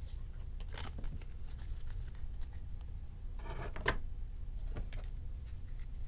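Faint rustling and light clicks of trading cards and card packs being handled on a table, with a slightly louder rustle about a second in and another around the four-second mark, over a low steady hum.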